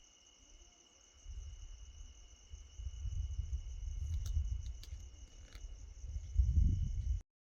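Thunder rumbling low, swelling from about a second in and loudest near the end, over crickets and other insects chirring steadily. A few sharp clicks come around the middle, and all sound cuts off abruptly just before the end.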